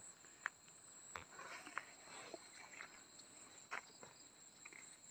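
Faint, steady high-pitched drone of insects such as crickets, with a few soft clicks and rustles.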